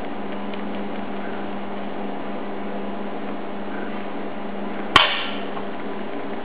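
A single sharp metallic knock about five seconds in, the mesh sieve striking the rim of the steel mixing bowl as flour is sifted in, over a steady low hum.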